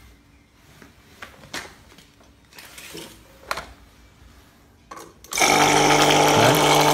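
A few light clicks of handling, then about five seconds in a mini electric pressure washer's motor and pump start abruptly and run steadily with a hum and a high hiss, water spurting from the open gauge port. The machine running normally shows the sticking relay now switches the motor on.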